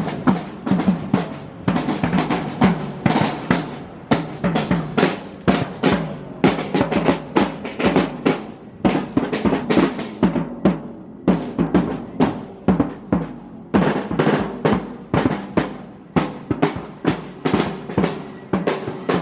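A marching drum beaten with mallets, keeping up a steady, repeating rhythm of sharp strikes.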